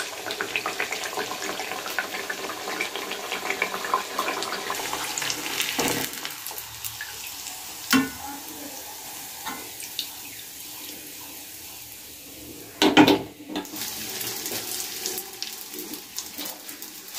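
Hot oil sizzling and crackling as a jaggery-batter pitha deep-fries in an iron karahi. The sizzle thins out once the fritter is lifted out with a mesh strainer, with a couple of metal knocks in the middle, then a loud burst about thirteen seconds in gives way to strong sizzling again as a fresh pitha fries.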